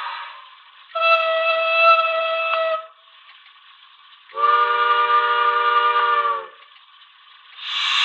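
Model steam locomotive's DCC sound decoder playing two recorded steam whistle blasts: a higher single-note whistle of nearly two seconds, then after a pause a deeper whistle of several tones together, about two seconds long. A loud steady hiss starts near the end.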